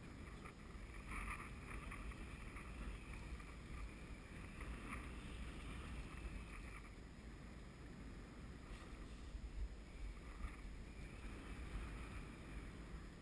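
Wind rumbling on the microphone aboard a small boat drifting at sea. A faint higher-pitched hum comes in about a second in, fades near seven seconds and returns briefly near the end.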